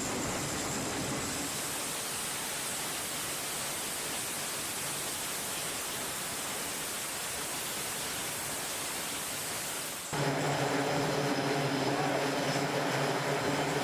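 Grumman E-2 Hawkeye's turboprop engines running on a carrier deck: a steady rushing noise, then about ten seconds in a louder, steadier sound with a distinct low hum.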